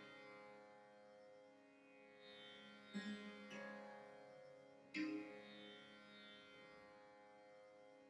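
Faint drone of plucked strings in the manner of a tanpura: a steady ringing tone, with three strings plucked in turn around three to five seconds in, each left to ring out slowly.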